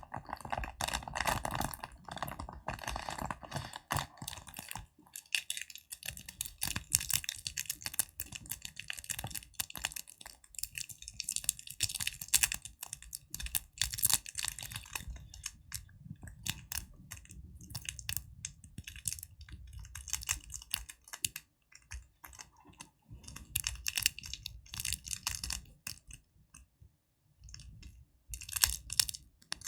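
Close-up hand tapping and crackling: a dense run of quick, sharp taps and crackles that goes quieter for a moment near the end before a last flurry.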